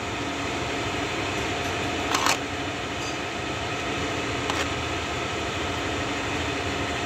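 A steady mechanical hum, with a short sharp knock about two seconds in and a fainter one a couple of seconds later.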